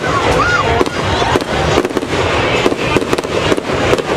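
Aerial fireworks bursting in an irregular, rapid series of bangs and crackles.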